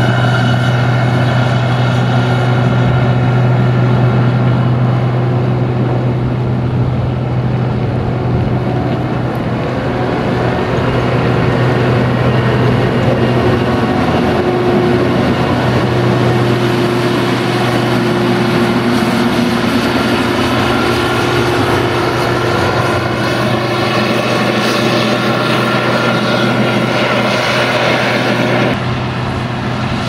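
CASE IH 2166 Axial-Flow combine's diesel engine running steadily with a strong constant hum as the machine moves along close by. Near the end the sound drops suddenly to a quieter tractor engine.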